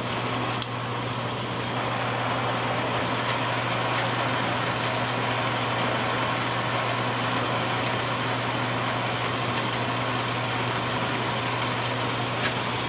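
Atlas 618 metal lathe running under power, its carriage feeding along the lead screw on freshly replaced half nuts: a steady motor hum with an even mechanical whir.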